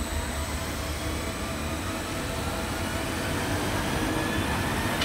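Juvelen steel roller coaster train running along its track: a steady rumble that grows slightly louder, with a faint whine rising gently in pitch.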